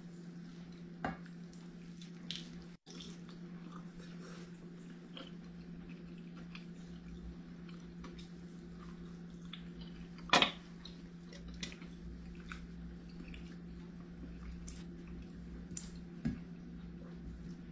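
A person eating chicken wings by hand: scattered small clicks and mouth noises of biting and chewing over a steady low hum, with a sharp click about ten seconds in.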